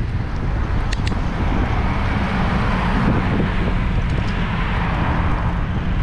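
Storm wind buffeting the microphone of a bike-mounted camera in a heavy low rumble, with the rushing noise of road traffic swelling through the middle.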